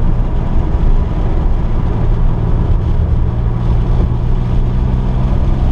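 A car's engine running at a steady speed, a constant low drone with rumbling noise and no rise or fall in pitch.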